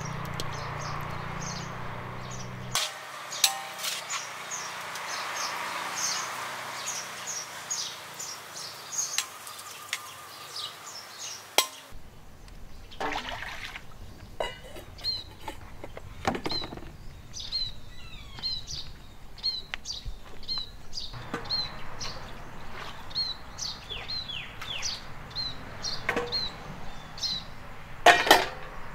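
Birds chirping, with a short high call repeated over and over at a steady pace in the second half, and a few scattered clinks and knocks.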